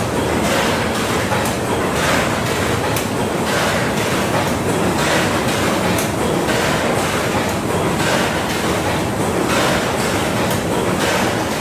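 Train running on the rails: a steady rumble with wheels clicking and rushing over the track at irregular intervals about every second.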